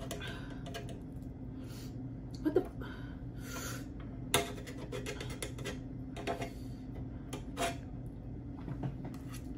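A fork scraping and tapping on an electric griddle while gathering noodles: a scatter of short clinks and scrapes over a steady low hum.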